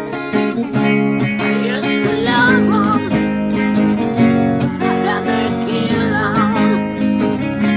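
Acoustic guitar strumming steady chords, with a lead guitar solo over it from about two seconds in, its notes bent and wavering.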